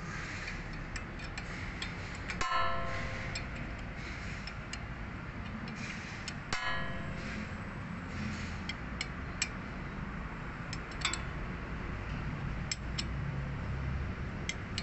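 Steel hand wrench working bolts on a rear brake caliper: scattered small metal clicks and taps as it is fitted and turned, with two ringing metallic clinks, a couple of seconds in and again about four seconds later, over a steady low hum.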